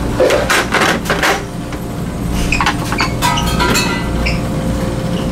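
Steady low drone of a car ferry's engines, with handling noise in the first second and a half and then a few light metallic clinks of serving utensils and dishes.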